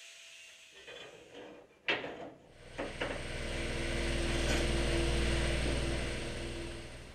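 A steel bar knocking against the car's sheet-metal body, one sharp knock followed by two lighter ones, then a steady low hum with one held tone that swells and fades away near the end.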